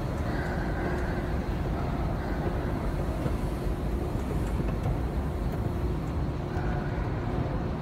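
Steady low rumble of a metro station's background noise, with a faint steady hum and no distinct events.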